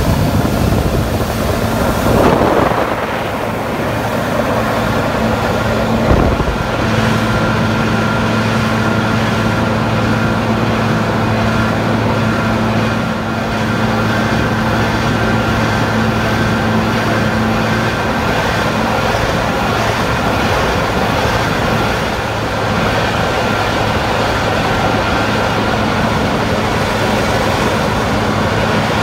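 Jet boat engine running at speed, a loud steady drone over the rush of water beneath the hull. It swells briefly twice in the first few seconds.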